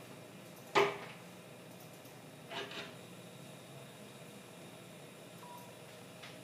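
Quiet room tone broken by two short knocks: a sharp, loud one about a second in and a softer, doubled one at about two and a half seconds.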